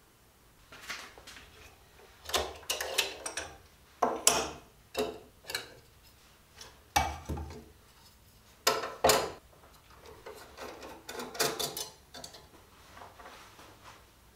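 Cast-iron and steel parts of a Stanley No. 113 compass plane clicking and clunking as it is taken apart by hand, its lever cap, plane iron and chipbreaker lifted off and set down on a wooden workbench. A series of separate sharp knocks and clicks, the loudest about four seconds in.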